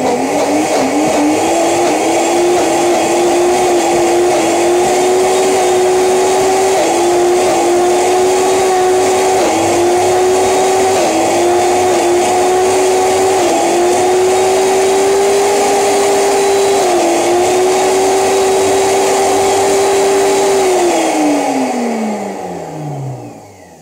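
1500 W high-speed blender motor running at full speed on its nuts setting, loud and steady. Its pitch dips briefly several times as the tamper pushes the thick frozen banana and blueberry mix down onto the blades. Near the end it winds down with a falling pitch as it is switched off. The frozen mix is not circulating and stays in lumps.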